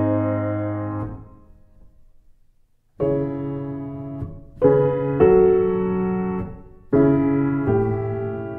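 Slow background piano music: held chords, each struck and left to die away. The music fades to almost nothing about a second in and resumes with a new chord about three seconds in.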